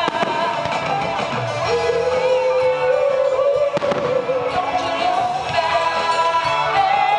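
Music with a held, gliding melody playing over a fireworks display, with aerial firework shells bursting: one bang just after the start and another about four seconds in.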